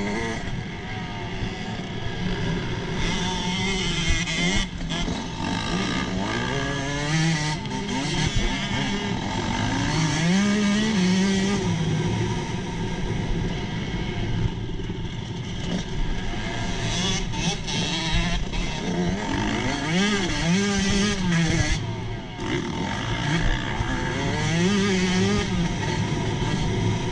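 Motocross bike engine heard from on board, revving hard and easing off again and again as it is ridden around a dirt track, with wind rushing over the microphone.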